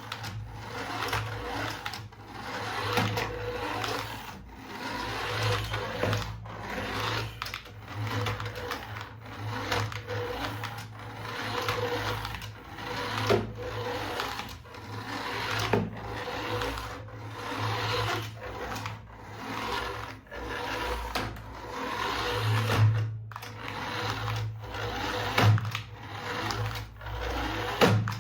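A small electric motor whirring with a rattling drive, surging and easing in uneven pulses about once a second, with a few sharp clicks.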